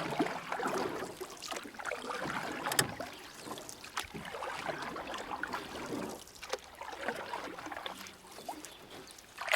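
Canoe paddling: water swishing and dripping with each paddle stroke, the strokes coming about every second or so, with a few sharp knocks.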